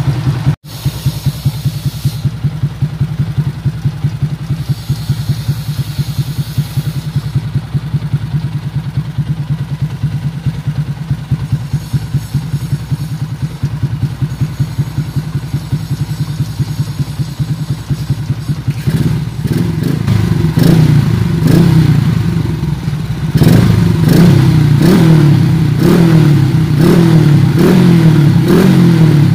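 Yamaha Sniper MX135 single-cylinder four-stroke engine, bored up to 177cc and running through a Kalkal aftermarket exhaust pipe, warming up. It idles steadily at first, then about two-thirds of the way through it is revved in short blips, roughly one a second.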